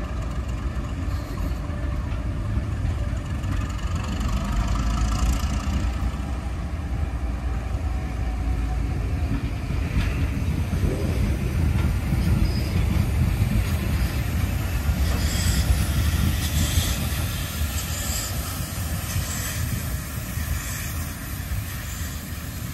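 A steam-hauled heritage passenger train, maroon carriages and the 3001 steam locomotive, rolling past on the rails with a steady heavy rumble. In the second half, as the last of the train goes by, there is a regular beat about once a second.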